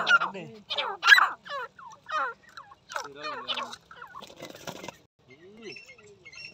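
Partridges calling in quick, harsh bursts as they square off to fight, with a short rustling flurry about four and a half seconds in and small high chirps near the end.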